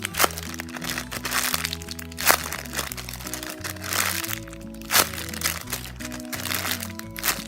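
A homemade squishy being squeezed and handled, crinkling and crunching with four sharp crackles, over background music.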